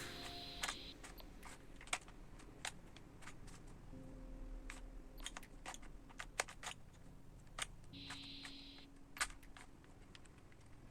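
Faces of a plastic Rubik's cube being turned by hand: sharp, irregular clicks, one or two a second.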